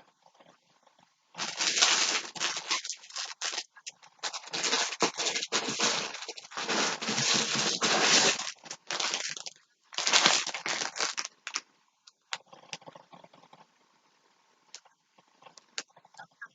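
Plastic packaging crinkling and rustling loudly as yarn skeins are handled, in two long stretches, then a few light clicks and rustles near the end.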